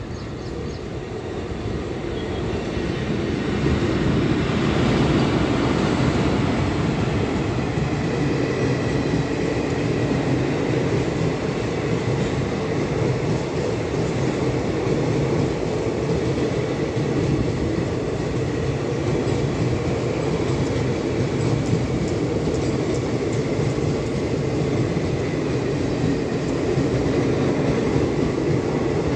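Indian Railways passenger coaches rolling past at speed, a steady noise of wheels running on the rails. It grows louder over the first few seconds and then holds.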